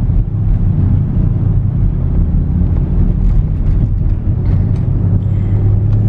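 Steady low rumble of a moving car heard from inside the cabin: engine and road noise while driving.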